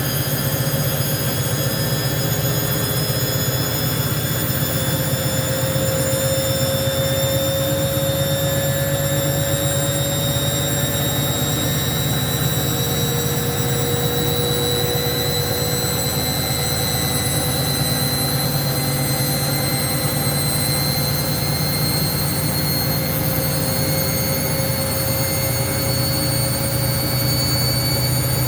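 Hoover washing machine running loudly, its motor whine climbing slowly and steadily in pitch as the drum speeds up, as in a spin cycle. The owner calls the machine gone crazy.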